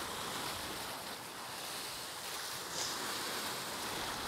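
Sea surf washing against a rocky shore, a steady rushing hiss with some wind, and one brief louder swish about three seconds in.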